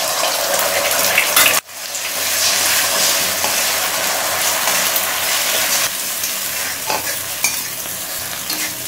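Beaten eggs sizzling in hot vegetable oil in a metal kadai, with a metal spatula scraping and stirring them as they fry and scramble. The sizzle cuts out for a moment about a second and a half in, then carries on.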